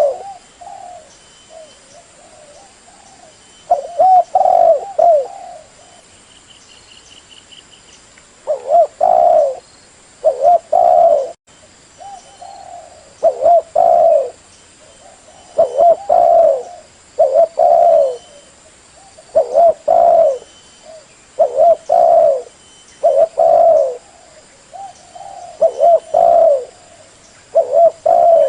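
Spotted dove cooing: loud, low coo phrases repeated about every two seconds, a lure call for drawing doves in.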